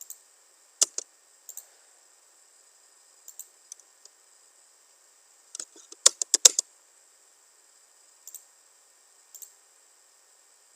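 Scattered sharp clicks of a computer mouse, many in quick pairs, with a fast run of about six louder clicks a little past the middle, over a faint steady high hiss.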